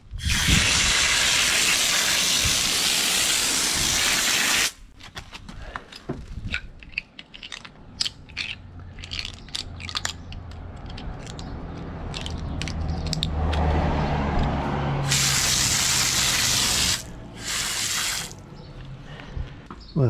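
Garden hose spray nozzle jetting water onto metal door hinges on concrete to rinse off paint stripper. One long spray of about four seconds, then two short sprays near the end, with light clinks of the hinges being handled between. A low hum swells in the second half.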